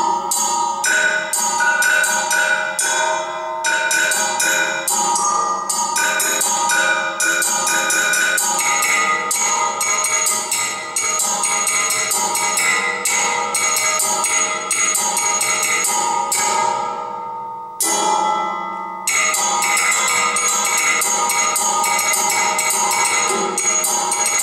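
A percussion sculpture of bent metal rods struck rapidly with sticks: dense, ringing metallic strikes with several pitched tones sounding together. About two-thirds of the way through, the striking stops and the ringing dies away for about a second, then the rapid striking starts again.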